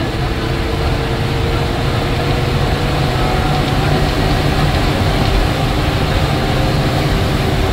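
Inside a TNSTC bus cabin: the bus's diesel engine running with a steady low rumble of engine and road noise and a faint steady whine, as the bus goes down a winding ghat road.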